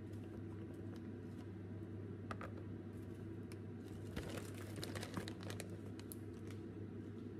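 Plastic dumpling bag crinkling and rustling as it is handled and shaken, with scattered light clicks that are busiest from about four to six and a half seconds in, over a steady low hum.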